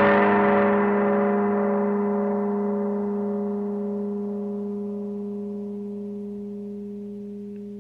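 A distorted electric guitar chord left to ring out at the end of a noisecore piece, slowly fading. Several steady tones die away evenly, the hiss and top end going first, and one tone wobbles about twice a second.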